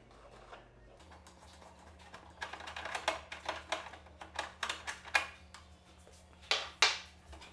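Quick light clicks and rattles of a screwdriver and plastic parts as a panel on a table tennis robot is unscrewed and worked loose, the loudest clatter near the end. A faint steady low hum sets in about a second in.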